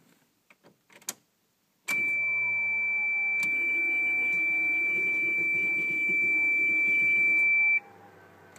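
Toyota MR2 with the ignition switched on: a steady high whine with a rough buzz beneath it, starting abruptly about two seconds in and cutting off sharply about six seconds later. The whine and buzz come from the Walbro fuel pump and the loudly buzzing ignition relay, on a car that will not crank.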